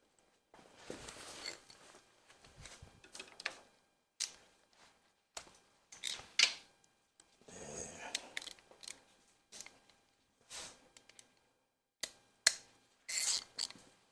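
Hand tools working on a Ford 351 Windsor engine during teardown: irregular metal clicks, clinks and knocks with a few longer scraping stretches, about one sharp click every second or two and a cluster of them near the end.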